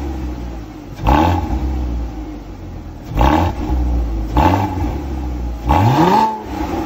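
Porsche Cayman 987.2's 2.9-litre flat-six, heard at the tailpipes through a Fabspeed X-pipe and Carnewal GT exhaust, free-revved from idle in four quick throttle blips. The blips come about a second in, near three seconds, near four and a half and near six. Each rises in pitch and drops back to idle, and the last is held a little longer.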